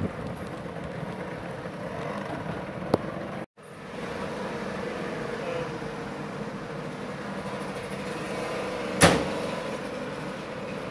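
Steady background noise of a room with a faint hum, cutting out completely for a moment about three and a half seconds in. There is a faint click just before the dropout and a single sharp knock about nine seconds in.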